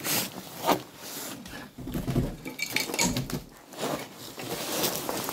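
Irregular footsteps, scrapes and knocks of someone moving through a cluttered room strewn with debris.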